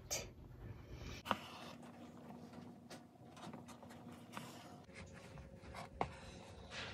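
Faint rustling and scratching of embroidery thread and a needle being drawn through denim during hand stitching, with a few soft ticks.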